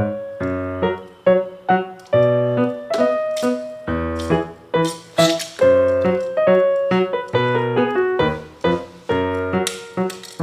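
Background music: a piano or keyboard tune of quick, struck notes, with occasional light percussion strokes.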